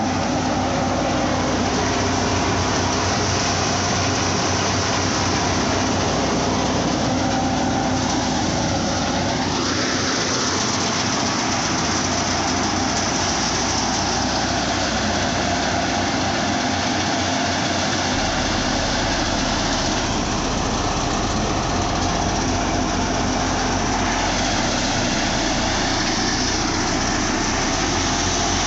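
Tractor-driven paddy thresher running steadily under load while paddy is threshed, a continuous machine drone.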